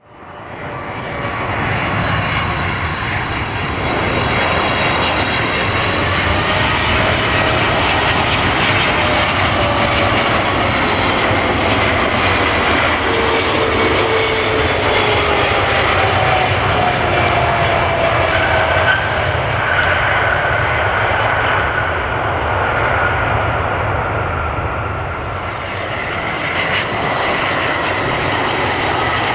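Jet airliner's engines on landing approach, a loud steady roar with whining tones that slowly fall in pitch as it passes.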